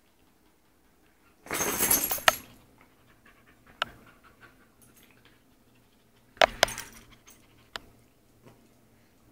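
Pet dogs panting and moving about on a wooden floor, with a brief loud rustle about a second and a half in and several sharp clicks later on.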